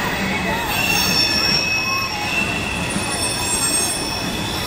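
Freight train rolling through a grade crossing, its wheels squealing in several steady high tones over the rumble of the passing cars.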